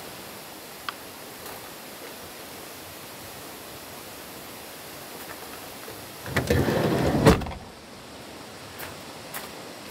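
A door of a Renault Kangoo van moving for about a second and then shutting with a bang, about seven seconds in, over a steady outdoor hiss. A small click comes about a second in.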